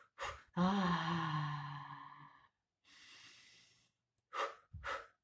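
A woman's long voiced sigh on the out-breath after a quick in-breath, one steady low tone that slowly fades over about two seconds: a vocalised exhale of the kind used to breathe through labour contractions. Faint breathing follows, then two short sharp breaths near the end.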